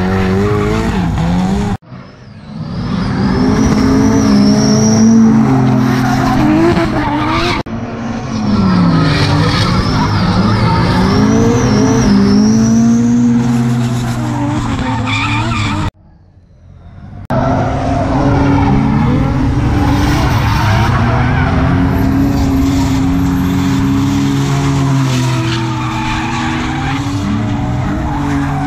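Drift cars sliding past, their engines revving up and down over a continuous screech of tyres skidding and squealing. The sound drops away sharply twice, about two seconds in and again for about a second around sixteen seconds.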